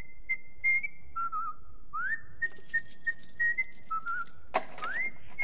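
Whistling: a single note slides up and holds high, broken by light clicks, then drops to a lower warbling note. The pattern repeats twice and slides up to the high note again near the end.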